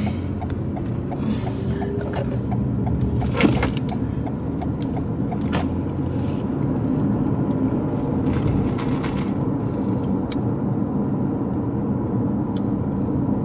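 Steady low rumble of a car heard from inside the cabin. A run of light, evenly spaced ticks sounds over about the first five seconds, and a single sharp knock comes about three and a half seconds in.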